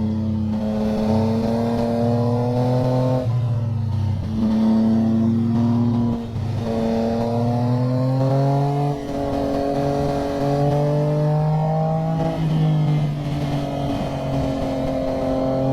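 Motorcycle engine under power, its pitch climbing slowly and then dropping sharply at each of about four gear changes as it pulls through the gears.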